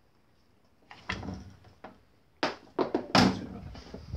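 A big screwdriver prying the oil seal out of the rear output housing of a Land Rover LT230 transfer box: metal scraping from about a second in, then a run of sharp knocks and clatters, the loudest about three seconds in, as the seal is levered free.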